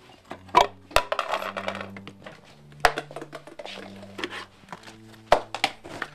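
Objects knocked and clattered about while a room is rummaged through: several sharp knocks with rustling and shuffling between them, over soft background music.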